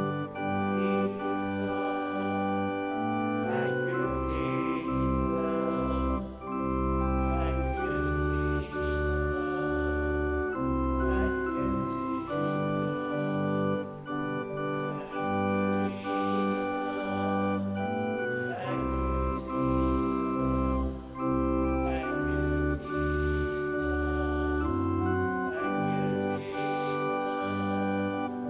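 Organ playing a slow worship chorus in sustained chords, the harmony changing every second or two over a moving bass line.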